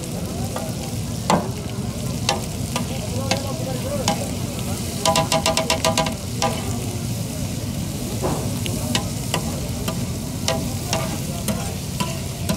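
Cubes of bull liver sizzling on a large flat griddle while a metal spatula scrapes and clacks against the plate. About five seconds in the spatula strikes the griddle in a quick run of about nine ringing clanks.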